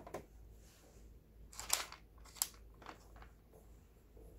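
Screwdriver backing out the bottom-cover screws of a Singer 7285 sewing machine: a few faint scrapes and clicks, the loudest a scraping burst a little under two seconds in, followed by a sharp click.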